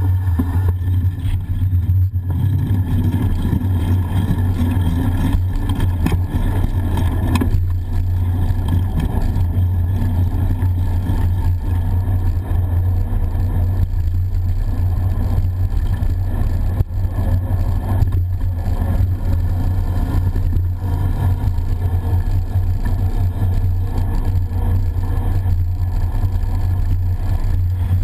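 Steady low rumble of wind and road noise on a bicycle-mounted GoPro HERO camera while the bike is ridden along a street.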